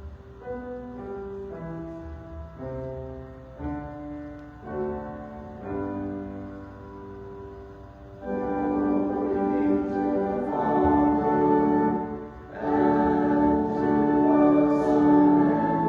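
Church organ playing a slow hymn tune. It starts as a single-line melody of held notes, then from about eight seconds in it moves to full, louder chords.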